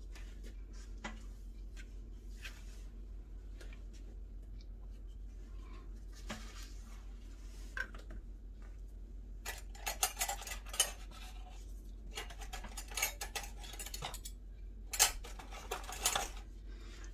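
Small hard objects clinking and scraping on a work surface off to one side, in several short clusters of sharp clicks in the second half, over a low steady hum.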